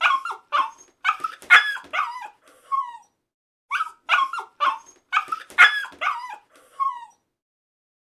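A dog yipping and barking in quick, short calls, several ending in a falling whine. The same run of calls plays twice, with a short pause between.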